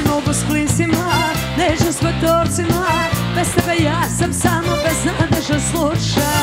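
Band music with a singer, over a steady drum beat.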